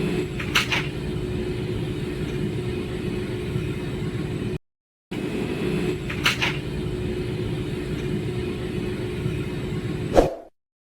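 Electric arc welding on a stainless steel pipe joint: a steady hiss with a low hum, cut off by a short gap about halfway through, then running on again.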